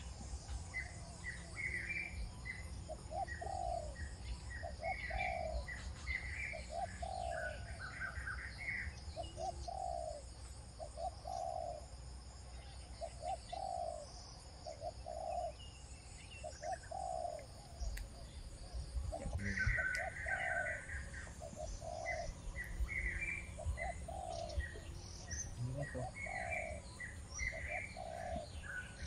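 Birds calling: a low call note repeated roughly once a second, with clusters of higher chirps over it. A steady low rumble runs underneath.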